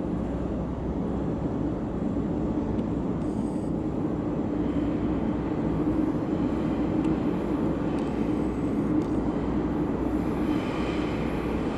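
MTR train running on the track behind platform screen doors: a steady low hum and rumble that grows slightly louder, with a faint high whine coming in near the end.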